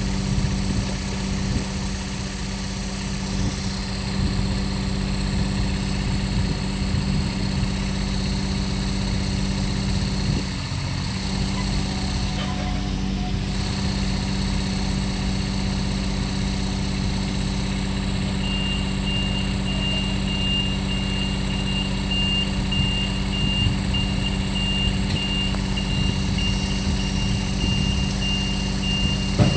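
Engine of a tracked spider crane running steadily at a constant speed. About two-thirds of the way through, a rapid high-pitched beeping starts and continues.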